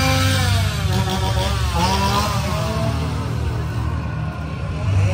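Chainsaw revving in swells, its engine pitch rising and falling about twice.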